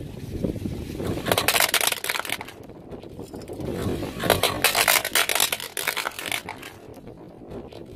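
A car tyre rolling onto a plastic toy car and crushing it: two bursts of crackling and snapping, about a second in and again from about four seconds, over a low rumble from the car.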